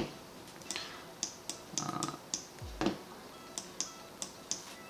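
Light clicking at a computer: about a dozen short, scattered clicks, with a low thump near three seconds in.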